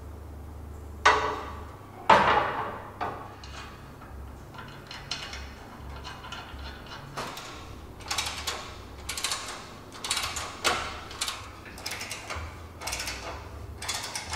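Steel transmission crossmember set down on a car frame with two loud metal clanks, one a second apart, followed by a run of lighter metallic clicks and clinks, about two a second, as bolts and nuts are fitted to it with a hand wrench.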